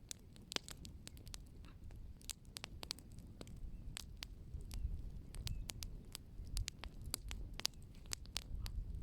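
Wood fire crackling, with sharp irregular pops and snaps over a low steady rumble.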